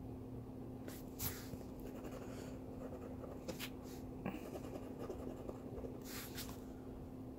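Faint, scattered short scratches on the coating of a scratch-off lottery ticket, a few strokes in pairs as numbers on the bingo cards are scratched off.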